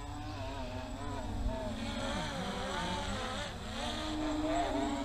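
MJX Bugs 3 quadcopter's brushless motors and propellers whining in flight, several tones wavering up and down and weaving past each other as the throttle and attitude change, loudest near the end.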